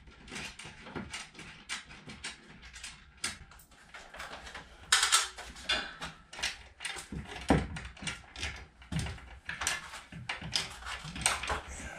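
Perforated steel hanging bracket of a SafeRack overhead garage rack clanking and rattling as it is worked into a new hole on the ceiling rail: a rapid run of sharp metal knocks and clinks, loudest about five seconds in and again past seven seconds.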